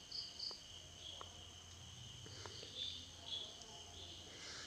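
Crickets chirping faintly, a steady high trill with short repeated chirps above it, and a few faint clicks of plastic MC4 solar connector halves being handled and pushed together.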